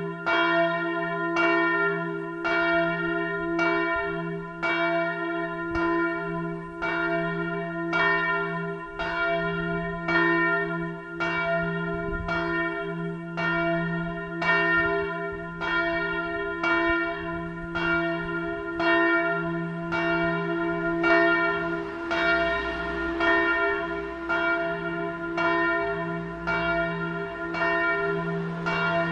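The largest bell (bell no. 1) of St. Mariä Himmelfahrt, Ebrach, rung on its own, swinging and struck about three times every two seconds. Each stroke rings on into the next over a steady deep hum.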